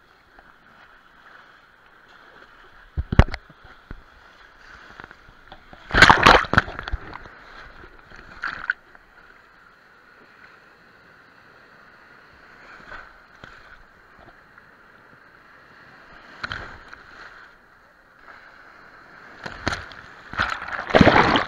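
Sea surf and splashing water close to the microphone at the waterline: a steady muffled wash of waves with several sudden splashes as waves break over the camera, the loudest about six seconds in and again near the end.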